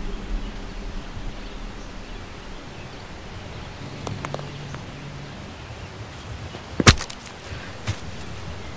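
A quiet background hush broken by one sudden sharp crack about seven seconds in, followed by a lighter click about a second later.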